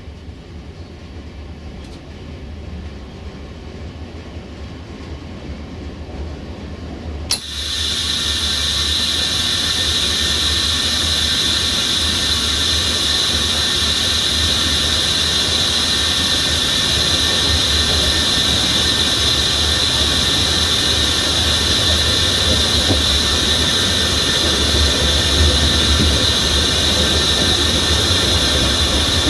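A passenger train rolling with a low rumble that builds, then about a quarter of the way in a loud, steady high-pitched squeal starts suddenly and carries on: steel wheels squealing against the rail, typical of the train taking a curve.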